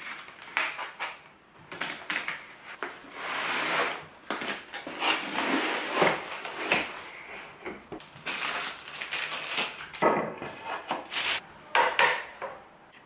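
A large cardboard flat-pack shelf box being cut open with scissors and unpacked: cardboard scraping and rustling, wrapping paper crinkling, and many short knocks and clicks as the flaps and wooden boards are handled.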